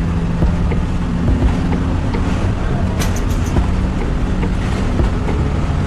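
Hino AK1J bus's diesel engine running steadily while the bus drives on the road, heard from inside the cabin as a low drone with road noise. A few light clicks and rattles come through, the clearest about three seconds in.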